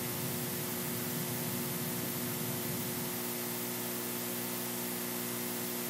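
Steady hiss with a low electrical hum underneath: background noise of the audio feed, with no other sound.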